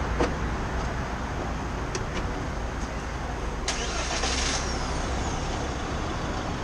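A vehicle engine running with a steady low rumble, with a few light clicks and a short hiss about four seconds in.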